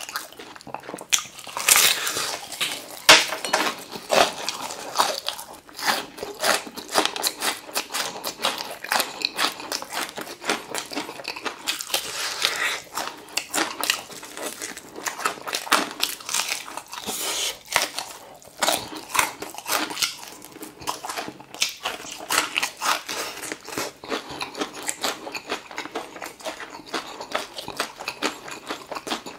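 Crispy fried chicken being bitten and chewed: a dense, continuous run of crackling crunches.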